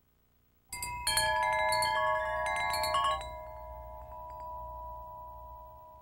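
A flurry of chimes: many bright notes struck in quick succession, starting about a second in. A few lower tones then ring on and slowly fade away.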